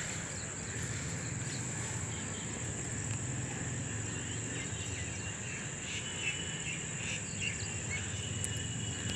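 Insects, likely crickets, trilling in one steady, high-pitched continuous tone.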